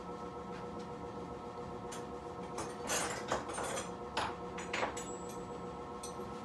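Metal sockets clinking and rattling while being sorted through in a socket set to find the right size. There are a few scattered clicks, a short rattle about three seconds in, and single clinks a little later, over a steady background hum.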